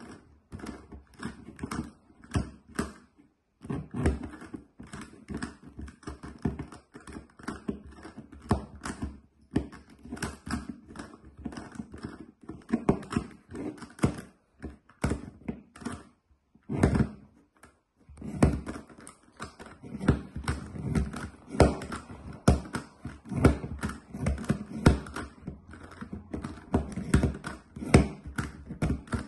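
GAN Megaminx's plastic faces being turned rapidly one-handed: a dense, irregular run of clicks and clacks, with a few short pauses.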